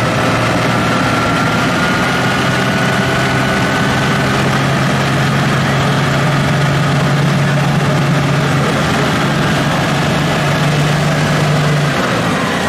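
Toyota Land Cruiser HDJ80's 4.2-litre straight-six turbo-diesel engine running steadily, its pitch creeping slowly up, then easing off near the end.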